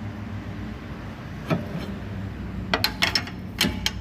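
Sharp clicks and knocks from the Chevrolet Cruze's front suspension as it is forced by hand: one about one and a half seconds in, then a rapid cluster near the end, over a steady low hum. The clicking comes from a worn suspension bushing shifting under load.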